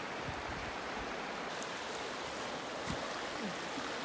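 Shallow snowmelt creek running over rocks and gravel riffles, a steady rushing of water, with a few faint clicks.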